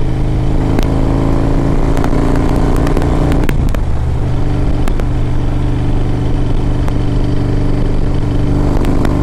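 The Screaming Eagle 113 cubic inch air-cooled V-twin of a 2007 Harley-Davidson Road Glide running loud under way, heard from the rider's seat. Its note changes about three and a half seconds in, then runs steady again.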